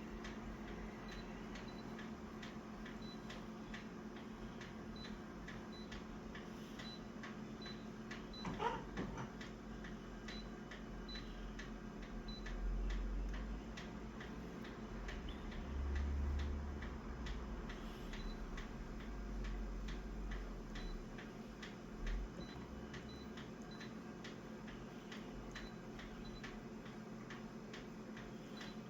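Steady, even ticking, about two ticks a second, over a low steady hum, with a brief wavering squeak about nine seconds in and a few low rumbles later on.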